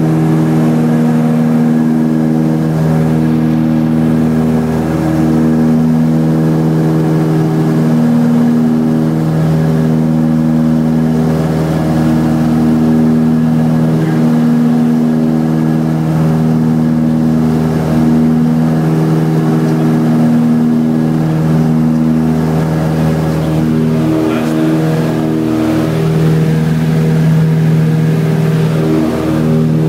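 Steady engine and propeller drone of a small propeller plane in cruise, heard from inside the cabin. The drone has a slow wavering beat that comes and goes every couple of seconds.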